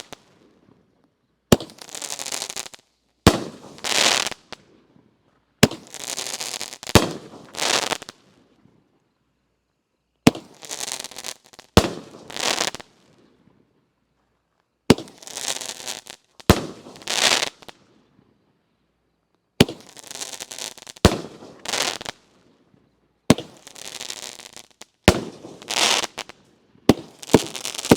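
Consumer fireworks cake firing shot after shot: sharp bangs, each followed by a brief crackle, coming in volleys a second or two apart with a few short pauses between them.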